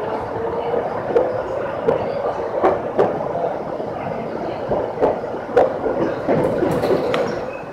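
Chichibu Railway electric train heard from inside the driver's cab as it pulls away from a station, with a steady hum and irregular clicks and knocks from the wheels passing over rail joints and points.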